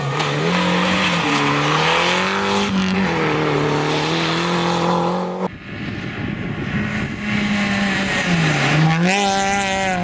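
A Peugeot 207 rally car's engine revving, its pitch dipping and rising several times with throttle and gear changes, cut off suddenly about five and a half seconds in. A first-generation Renault Clio's engine follows, coming closer and falling then rising in pitch as the driver lifts off and accelerates again.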